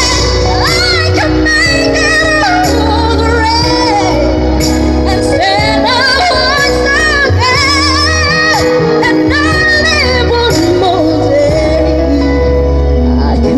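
A woman singing a pop song live into a handheld microphone over instrumental accompaniment with a sustained bass line. She holds notes with vibrato and sings quick melodic runs.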